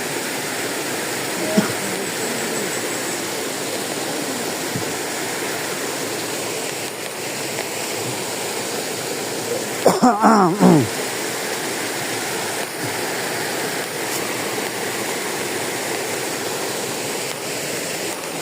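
Waterfall rushing steadily. About ten seconds in, a short loud call falls in pitch over it.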